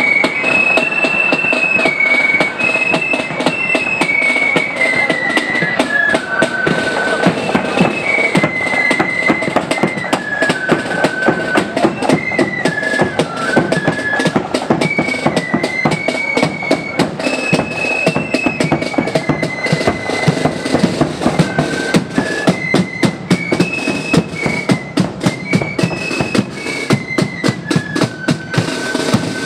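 Marching flute band playing a tune, the flutes carrying the melody in unison over steady snare drums and a bass drum.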